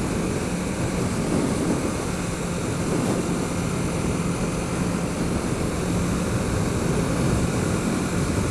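Wind rushing over a helmet-mounted microphone while riding a 2008 Kawasaki Ninja 650R. Underneath, its parallel-twin engine runs with a steady tone.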